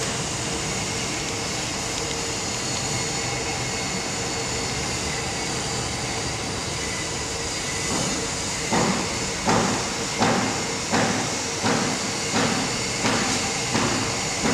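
Steady hum and hiss of machinery in a garment workshop. About two-thirds of the way in, a regular pulsing sound starts, about three pulses every two seconds.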